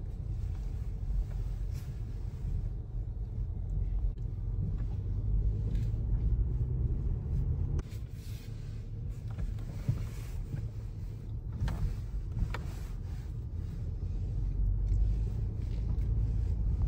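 A car driving slowly, heard from inside the cabin: a steady low rumble of engine and tyres, with a couple of light clicks past the middle and a sudden shift in the sound about eight seconds in.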